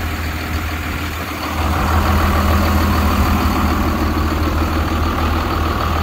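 A 2001 Freightliner school bus's diesel engine idling steadily, freshly started after sitting a couple of months in freezing weather; it gets louder about a second and a half in.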